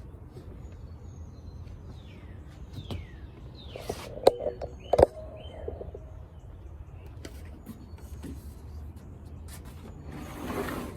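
Plastic pool-step parts being handled and fitted together, with scattered knocks and two sharp clicks about four and five seconds in, and a short rustle near the end. Birds chirp in the background.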